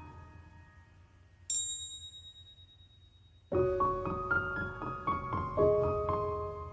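Background piano music. The notes fade away, a single high chime rings about one and a half seconds in, and the piano comes back in with a new phrase about three and a half seconds in.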